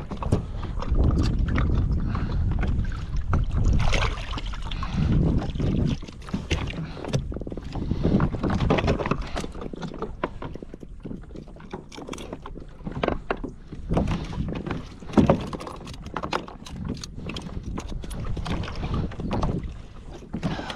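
Irregular knocks, clicks and rustling on a fishing kayak as a freshly landed redfish is handled, with low wind rumble on the microphone for the first several seconds. One sharp knock stands out about fifteen seconds in.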